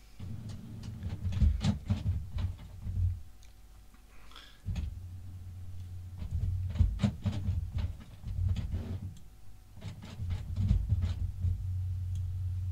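Inkjet printer starting a print job on heavy glossy photo paper: a low motor hum with many short clicks, a lull of about a second and a half a few seconds in, then a steadier hum with clicks as printing gets under way.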